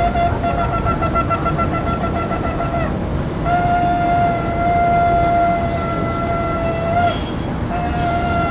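Ram's-horn shofar blown in long, steady single-pitched blasts. One blast ends about three seconds in, a longer one follows and rises slightly just as it cuts off, and another begins near the end. A constant low street noise runs underneath.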